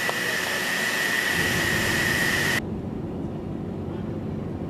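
Gantry steel-plate cutting machine's torch cutting through thick steel plate: a loud, steady hiss with a high whine. It cuts off abruptly a little over halfway through, leaving a low rumble.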